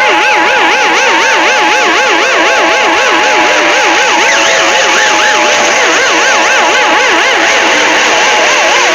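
Very loud Emergency Alert System alarm made of several siren tones warbling rapidly up and down at different pitches, layered over a hiss. Near the end another higher warble joins in.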